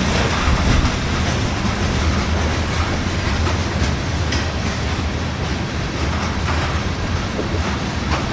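Norfolk Southern freight train rolling past, a steady rumble and rattle of cars and wheels on the rails, with a few sharper wheel clicks about four seconds in.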